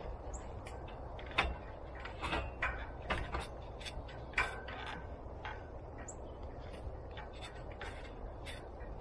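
Irregular rustles and sharp clicks of shade cloth and string being handled as the cloth is pulled taut and tied off. They come thickest in the first half and thin out after about five seconds.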